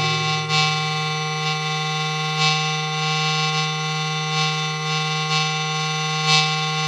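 Droning music: many held tones layered over a steady low hum, with soft swells about once a second.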